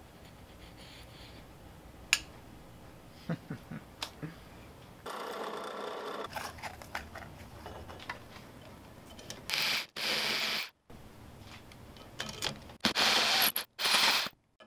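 Hand cleanup of a freshly machined cast faceplate: a few light clicks and taps on metal, then several short bursts of scraping, rasping strokes like filing, broken by sudden cuts to silence.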